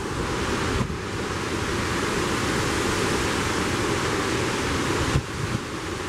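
Hurricane-force wind rushing and buffeting the microphone in a steady roar of noise. A gust swells about a second in and eases near the end.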